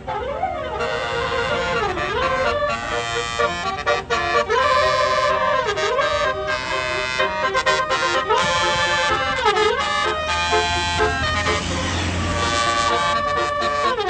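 Tour bus's basuri telolet horn playing a musical tune: pitched tones that swoop down and back up about every two seconds, ending on a long held note. A low engine rumble swells under it near the end.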